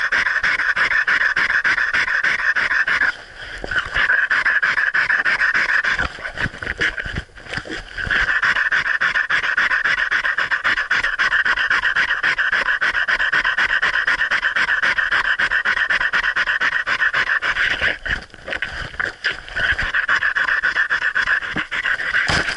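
A dog panting fast and steadily right at the microphone, breaking off briefly three times.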